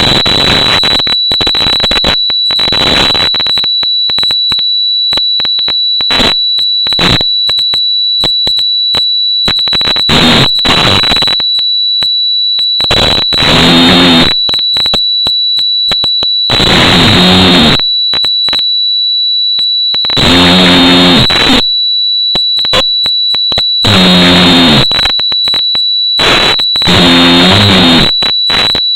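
A man snoring, with pitched snores of about a second each coming roughly every three and a half seconds in the second half, and crackly noise between them. A steady high-pitched whine runs underneath.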